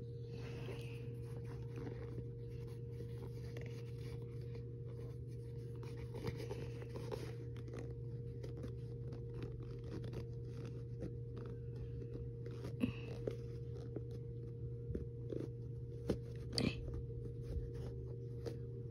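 Rustling and scattered small clicks of fingers handling a Vans Old Skool sneaker and threading its lace through the eyelets, growing busier in the second half, over a steady low hum.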